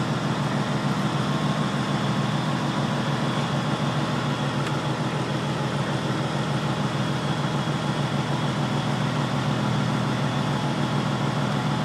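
Peterbilt logging truck's diesel engine running steadily at low revs as the truck crawls along at walking pace.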